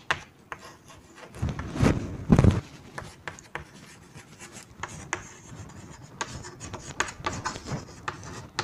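Chalk writing on a green chalkboard: a run of quick taps and scratching strokes, with two louder low thumps about two seconds in.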